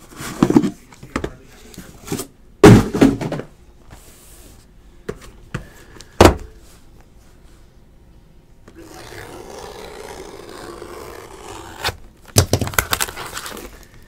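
Trading-card packaging handled on a tabletop: three sharp thunks in the first six seconds, a steady rubbing scrape from about nine seconds in, then plastic wrapping crinkling as a sealed Topps Tier One box is unwrapped.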